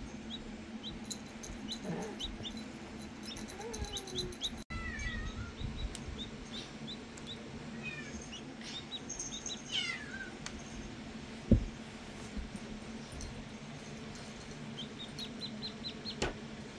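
Newly hatched Rhode Island Red chick peeping: short, high, falling peeps in quick runs, over a steady low hum. A single sharp thump about two-thirds of the way through is the loudest sound.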